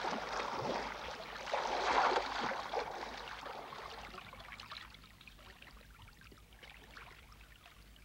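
Soft water sounds, trickling and lapping, swell for about two seconds and then fade away.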